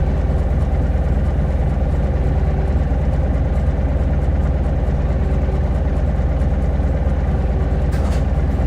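Diesel engine of a Hino Blue Ribbon hybrid city bus idling steadily, heard from inside the passenger cabin. There are a couple of light clicks near the end.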